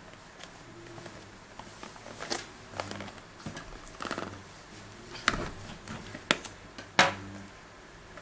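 Plastic shrink-wrap on a small cardboard box being slit with a serrated knife and peeled off by hand: scattered crinkles, scrapes and sharp ticks, the loudest about seven seconds in.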